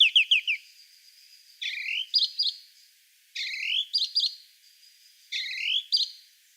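Song thrush singing: short, clear whistled phrases, the same phrase repeated about every two seconds.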